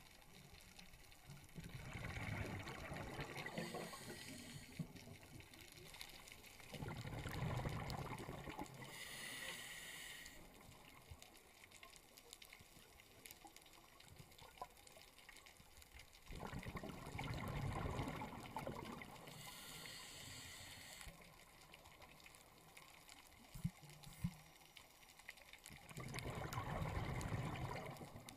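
Scuba diver breathing through a regulator underwater: a short high hiss of inhalation, then a longer bubbling rush of exhaled air. The cycle repeats roughly every ten seconds.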